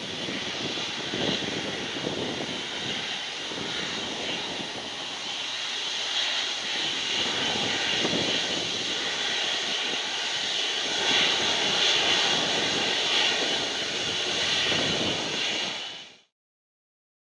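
Twin jet engines of a Boeing 777 taxiing: a steady rushing hum with a high whine, a little louder in the later part, then cut off abruptly near the end.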